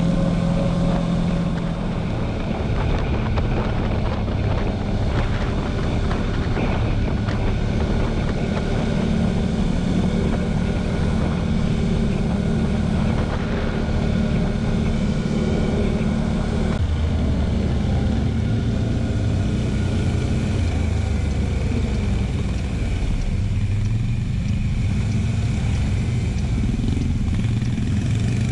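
TGB Blade 1000 quad bike's engine running while the ATV cruises on a road, heard from on board with wind rush over the camera. The engine note shifts lower a little past the middle as the quad slows down.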